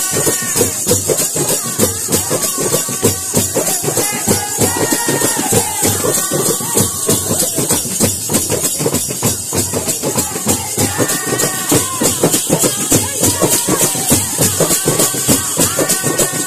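Tappeta gullu folk music: hand drums beaten in a fast, even rhythm while the dancers' waist bells jingle without a break. A wavering melodic line comes in briefly a few times over the beat.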